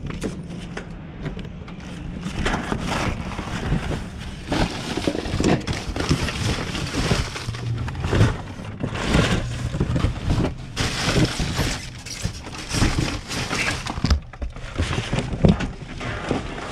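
Trash being rummaged through in a dumpster: bags and loose debris rustling, crinkling and clattering in irregular bursts, over a faint low steady hum.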